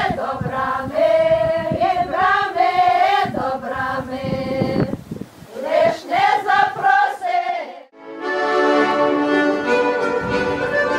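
A group of voices singing a Ukrainian folk song, cut off suddenly about eight seconds in and replaced by instrumental folk music with sustained notes.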